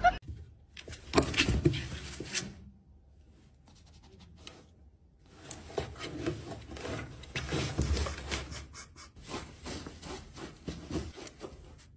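Fleece blanket rustling and scraping as it is dragged out of a pet bed and into a cardboard box, a run of short rubbing and scratching sounds. There is a brief burst in the first seconds, a quiet stretch, then steady rustling from about halfway on.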